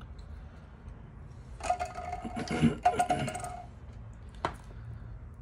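Plastic cap being twisted off a tube of silicone grease: a couple of seconds of crackling and clicking with short squeaky creaks as it turns, then a single sharp click near the end.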